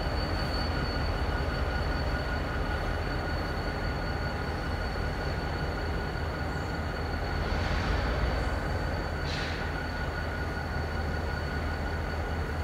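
EMD GP30 diesel locomotive running steadily as it slowly hauls a string of covered hopper cars, a low engine rumble under a steady high whine. Two brief higher-pitched bursts come about eight and nine seconds in.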